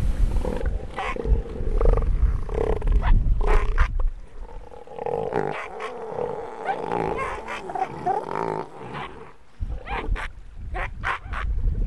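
Southern elephant seal bulls sparring, with repeated throaty bellows and roars, louder in the first few seconds and quieter after about four seconds, with a run of short pulsed calls near the end.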